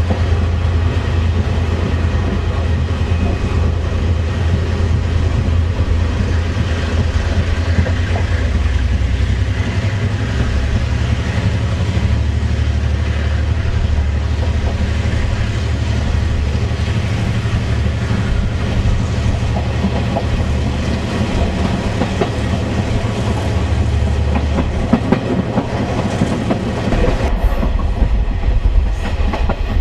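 Taiwan Railway ordinary passenger train hauled by a GM diesel locomotive running along the line: a steady, loud, low diesel rumble with wheels clacking over the rails, the clicks growing sharper near the end.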